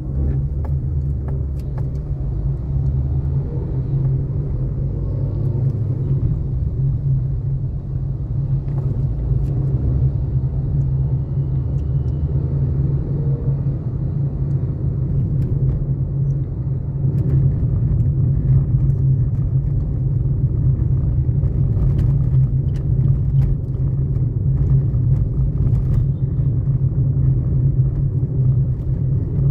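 Steady low rumble of a car on the move in traffic, with a few faint clicks now and then.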